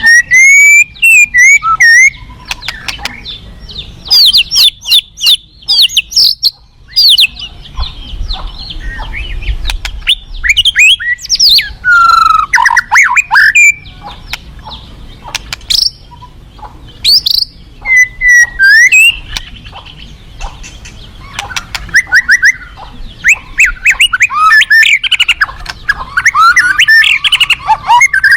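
White-rumped shama (murai batu) singing a long, varied song: rapid runs of rising and falling whistles mixed with sharp clicks, in bursts separated by short pauses, over a faint steady low rumble.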